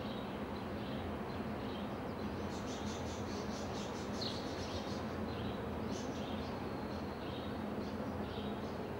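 House sparrow chirping, a run of short high chirps starting about two seconds in, over a steady low background rumble.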